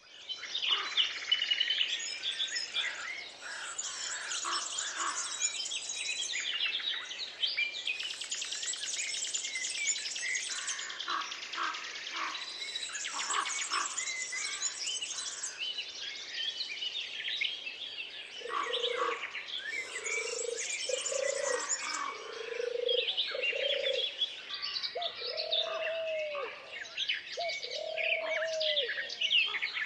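Daytime forest bird chorus: many songbirds singing at once in dense, overlapping high chirps and trills. A little past halfway, a lower call joins in, repeating in short notes about a second apart.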